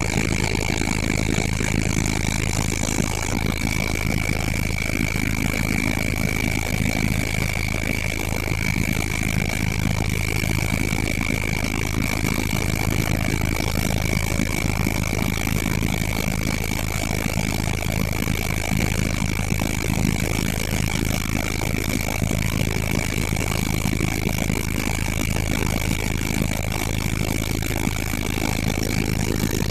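Helicopter running steadily: a constant engine and rotor drone with a steady high-pitched whine over it.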